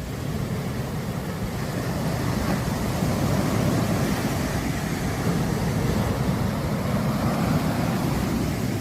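Sea waves breaking on a sandy beach: a steady rushing wash of surf with a low rumble, swelling about two seconds in and easing off near the end.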